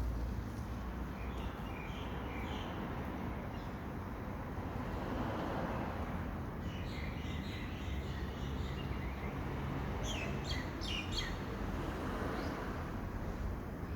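Small birds chirping on and off over a steady background hiss, with a quick run of sharp chirps about ten seconds in.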